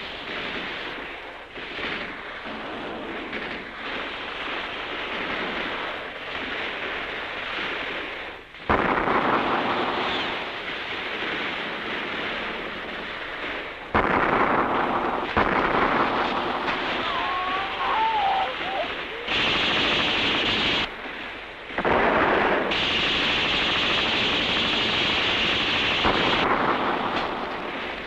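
Battle sound effects on an old film soundtrack: a continuous din of gunfire and explosions. There are sudden louder blasts about nine seconds in, at about fourteen seconds and around twenty-two seconds.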